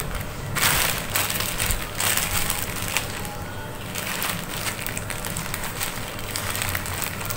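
A thin plastic courier mailer crinkling and rustling as it is cut open with scissors and handled, in irregular bursts with a few sharp clicks.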